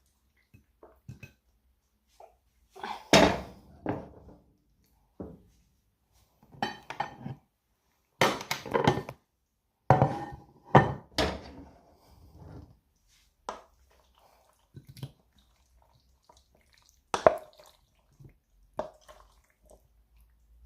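Pans, plates and cutlery clinking and scraping in irregular bursts as food is dished up, the loudest clatters about three seconds in, around eight to eleven seconds, and near seventeen seconds.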